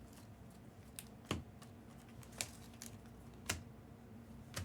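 Trading cards being handled by hand: about half a dozen light clicks and snaps as cards are flicked through and set down.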